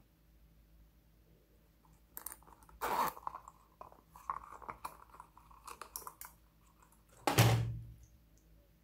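Small plastic containers being handled: scattered light clicks and crackles, then a louder thud near the end as something is set down.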